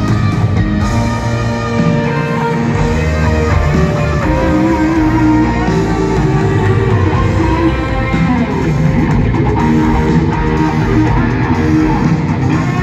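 Live rock music from a band playing through a stadium PA, electric guitar to the fore, heard from high in the stands.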